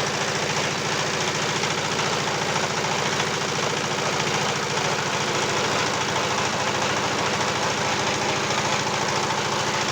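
The engine of a pellet-making machine running steadily, with a fast, even firing beat.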